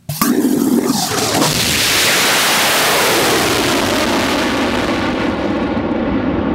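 Armadillo Aerospace STIG-A rocket engine igniting at liftoff: a sudden loud blast, then a continuous roaring rush of rocket exhaust. Its highest part thins out after about five seconds as the rocket climbs away.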